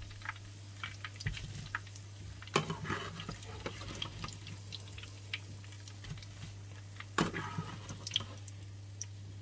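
Hot oil sizzling and crackling faintly in a frying pan around salt-cod fritters, while a metal slotted spoon scrapes and taps against the pan, with two louder knocks at about two and a half and seven seconds in. A steady low hum runs underneath.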